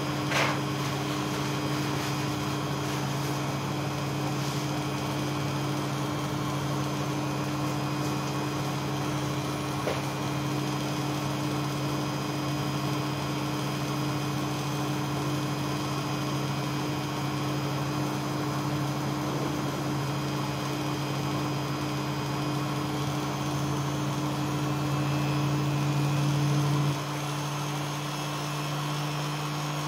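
Beko front-loading washing machine on its spin cycle: the drum spinning with a steady motor hum. A brief click comes right at the start; the hum grows louder toward the end, then drops suddenly.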